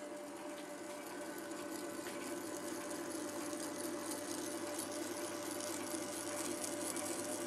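Small hobby metal lathe running slowly under power feed, its motor and gearing giving a steady hum with a hiss, while a clamp-type knurling tool rolls a knurl into a turning aluminium workpiece. The sound grows a little louder toward the end.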